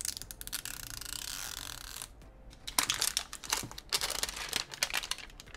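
Clear plastic wrapper film being peeled and pulled off a plastic toy capsule: a steady tearing hiss for about two seconds, then loose crinkling and crackling of the film.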